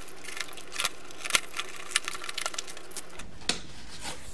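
Cardboard shipping box being opened: a box cutter slitting the packing tape and the flaps being pulled apart, an irregular run of sharp crackles and clicks.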